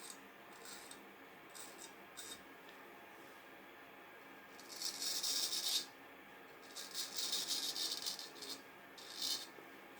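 Freshly honed straight razor shaving through stubble in a shave test of its edge. The strokes are short, scratchy rasps with pauses between them, and the longest, loudest strokes come about five seconds in and again around seven to eight seconds.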